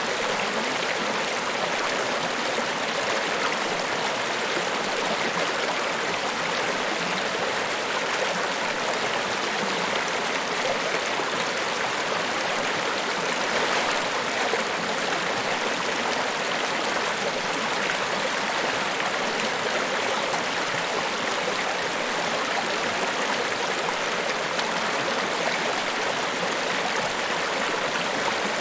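Niagara Falls: falling water rushing steadily, an even, unbroken hiss with little deep rumble.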